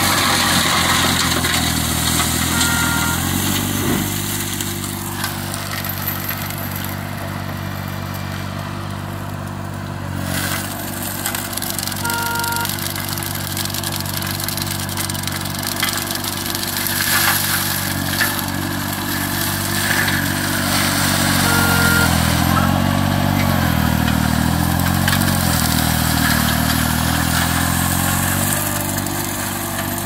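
Green Climber LV600 remote-controlled slope mower with its Kohler engine running under load while the mulching head chews through dense brush. The engine note dips and wavers, most in the second half. A short beep sounds three times, about nine seconds apart.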